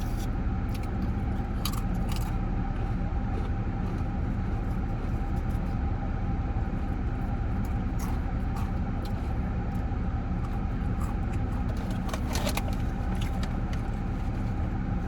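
Steady car engine and road rumble heard inside the cabin, with a few light clicks and rattles, the clearest near the start and near the end.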